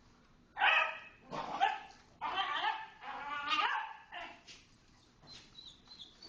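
Small dogs barking: a quick run of high-pitched barks starting about half a second in, then fewer, fainter barks after about four seconds.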